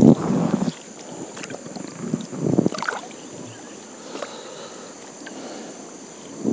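Water splashing and sloshing in two short bursts, one right at the start and another about two and a half seconds in.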